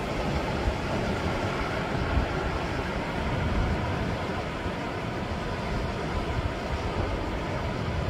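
Sea water washing against a rocky shore: a steady rushing noise with a deep rumble underneath and no distinct breaks.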